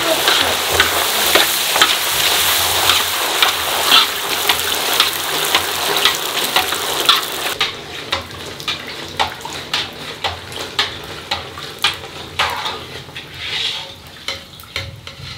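Small fuchka (pani puri) puris deep-frying in a wok of hot oil: a loud sizzle that eases after about seven seconds. Frequent light clinks and scrapes of the metal utensil against the pan run through it.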